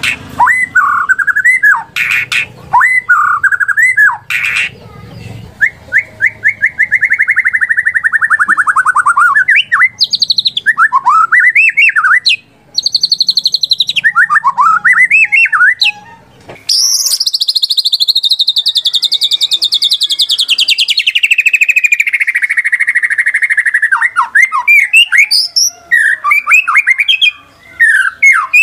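White-rumped shama (murai batu) singing: loud, varied phrases of quick whistled notes and buzzy trills, with a long rattling trill past the middle that slowly falls in pitch.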